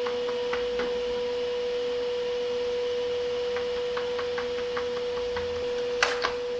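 A steady hum held on one pitch, with faint light clicks and taps as a table saw's fence and a board are handled. Two sharper knocks come near the end.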